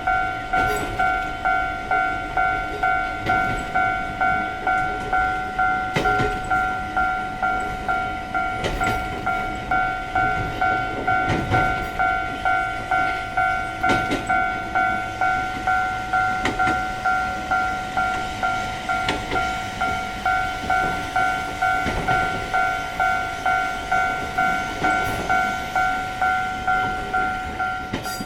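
Japanese railroad-crossing warning bell ringing its 'kan-kan' at an even beat of about one and a half strokes a second, with the rumble and clatter of a passing train over it, heaviest around the middle. The sound cuts off suddenly at the end.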